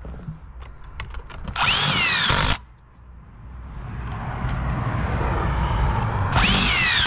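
A handheld power tool runs twice in short bursts of about a second each, about a second and a half in and again near the end, each with a whine that rises and falls. A low rumble swells in between.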